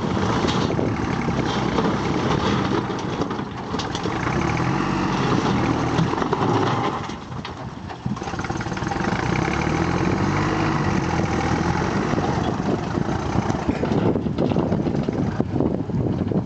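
Backhoe loader's diesel engine running, its pitch rising and falling as it is revved, with a brief drop in level about seven seconds in.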